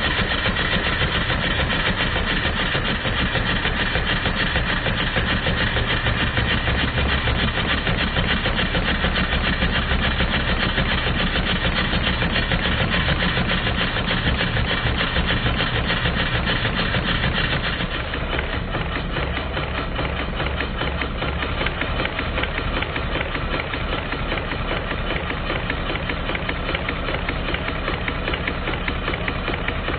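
Stuart model triple expansion steam engine running on compressed air: a fast, even patter of exhaust beats with the clatter of its valve gear and pumps. About 18 seconds in the sound drops a little and turns duller.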